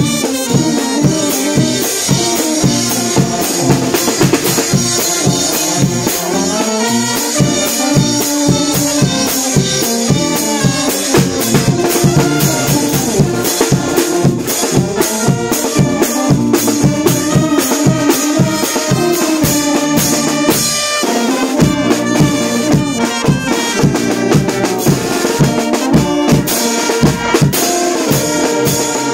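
A brass band playing a lively tune: trumpets, saxophones and sousaphone over a marching drum set of snare, bass drum and cymbals, with a steady driving beat.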